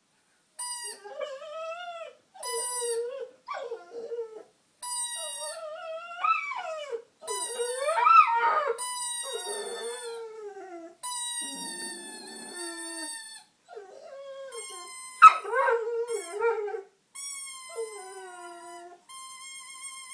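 Pit bull dog howling, a run of drawn-out notes that bend up and down in pitch with short breaks between them: the dog 'singing'. A sharper, louder cry stands out about three quarters of the way through.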